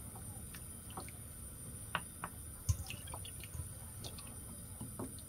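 Pork back ribs being stirred with a wooden spoon in a pot of hot water for blanching: light splashing of water with scattered small clicks and knocks.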